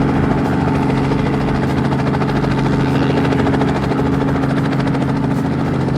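Rescue helicopter's engine and rotor running steadily, warming up before take-off.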